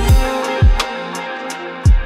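Background music with a drum beat: three heavy kick-drum thumps over sustained tones, with cymbal or snare hits.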